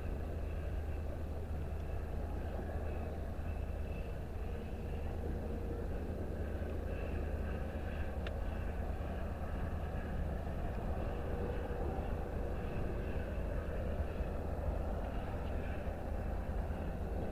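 Steady low rumble of a moving vehicle with no rhythmic beats, and a single brief click about eight seconds in.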